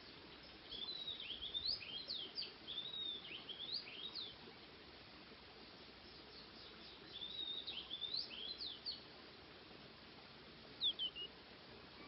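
Oriental magpie-robin singing: two phrases of varied high whistles, each a few seconds long, then a brief call near the end.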